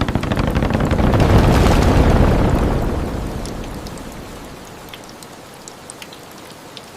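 Rain falling with a long rumble of thunder that swells over the first two seconds and dies away by about five seconds, leaving lighter rain with scattered drips.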